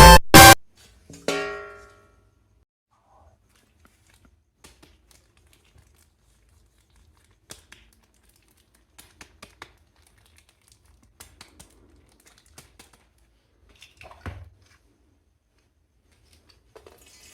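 Music cuts off, one plucked note rings and fades, then faint scattered clicks and crinkles of plastic bags being handled, with a soft knock about fourteen seconds in.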